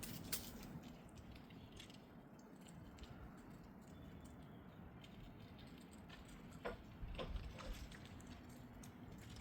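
Squirrels gnawing and cracking nuts: faint, scattered sharp clicks and ticks, a few louder ones together about two-thirds of the way through.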